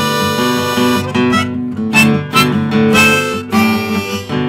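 Harmonica in a neck rack playing held chords over a strummed acoustic guitar, an instrumental harmonica break between sung lines, the chords changing every second or so.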